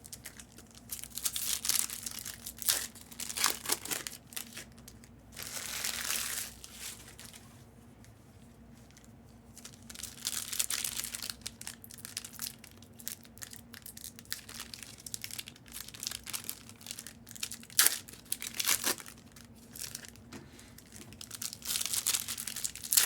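Panini Prizm football card pack wrappers being torn open and crinkled, in irregular rustling bursts with a few sharp crackles.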